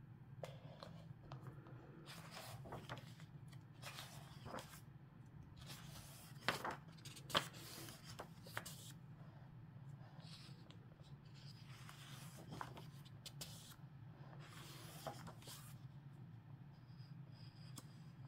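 Paper pages of a hardcover book being turned and handled, with soft rustling and sliding and two sharper page snaps a little after six and seven seconds in, over a low steady hum.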